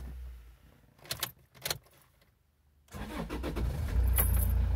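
A few clicks of the key in the ignition, a short pause, then the Toyota Yaris D-4D 1.4-litre four-cylinder diesel cranks and catches about three seconds in, settling into a steady idle.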